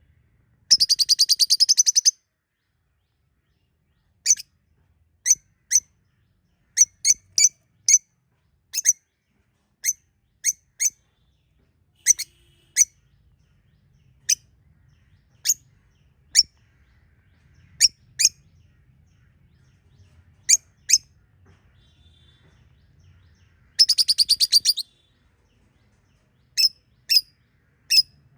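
Pet budgerigars calling: short, sharp high chirps, one at a time at uneven gaps, with a rapid trilling chatter lasting about a second and a half near the start and again near the end.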